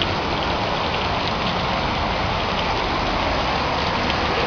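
Heavy rain falling steadily, a dense even hiss with a few separate drops ticking nearby.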